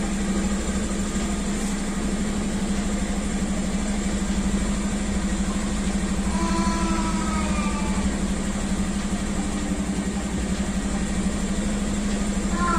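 Motorcycle engine idling steadily. Faint whistle-like tones come in briefly around the middle and again near the end.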